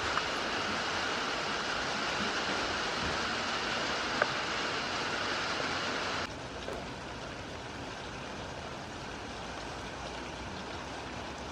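Steady hiss of heavy rain, broken by a single sharp click a little after four seconds in. About six seconds in it drops suddenly to a quieter, lighter rain.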